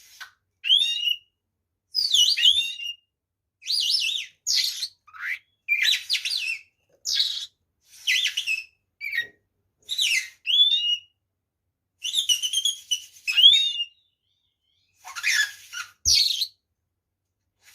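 Oriental magpie-robin (kacer) singing: a string of short, loud, varied whistled phrases with quick rising and falling notes, each under a second long and separated by brief pauses, with a longer pause near the end.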